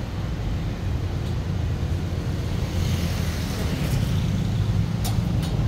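Steady low engine hum of street traffic, with a few light clicks about five seconds in.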